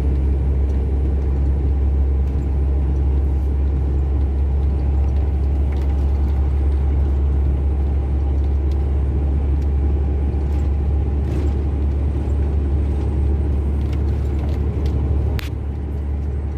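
Heavy truck's diesel engine and road noise heard inside the cab while cruising on the highway: a steady, loud, low drone that holds even throughout.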